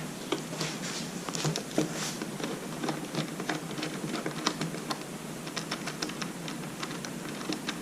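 Light, irregular clicks and taps, a few a second, of hands working loose the motorcycle's plastic passenger seat cover.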